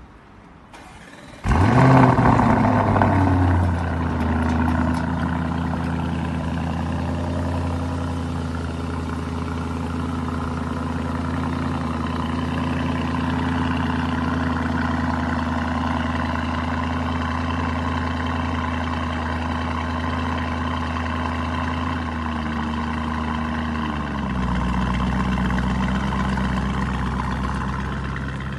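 Lamborghini Urus's twin-turbo V8 starting about a second and a half in with a loud flare of revs, then idling steadily. About 24 seconds in, the idle drops to a lower, deeper note.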